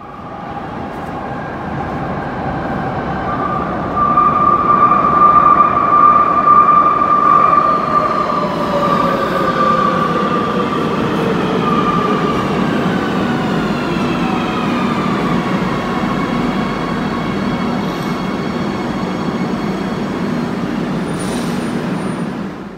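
Madrid Metro Line 3 train pulling into a station: wheel and motor noise with a whine that falls steadily in pitch as the train slows to a stop. A brief high tone sounds near the end.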